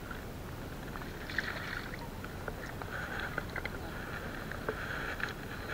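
Steady wash of sea water with scattered light clicks and knocks.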